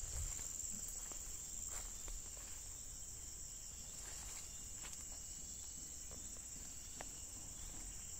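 Steady, high-pitched insect chorus, a continuous unbroken shrill drone, with a few faint ticks and rustles on dry ground.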